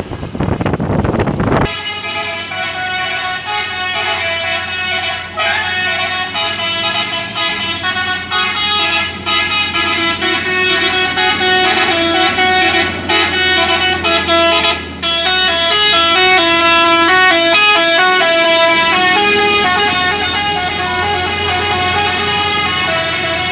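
Dump truck's multi-tone 'telolet' air horn playing a tune of stepped horn notes, loud and sustained, starting about two seconds in and getting louder past the middle.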